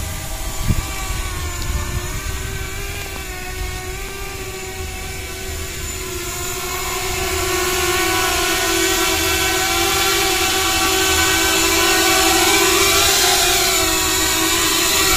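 7-inch FPV quadcopter's motors and propellers whining steadily in flight, the pitch wavering as the throttle changes and the sound growing louder about halfway through. There is a short knock about a second in.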